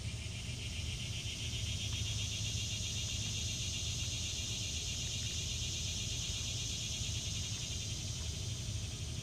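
A high, fast-pulsing insect buzz, holding steady, over a low constant rumble.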